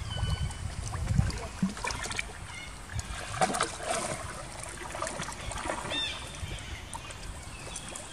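Pond water splashing and sloshing as macaques wade and a baby macaque swims, with a couple of short high squeaks from a young macaque, the clearest one falling in pitch about six seconds in.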